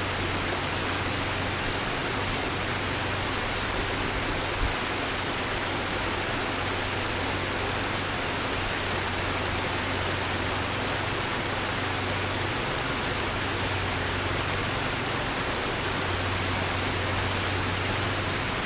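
Steady rushing hiss of flowing creek water, with one brief knock a little under five seconds in.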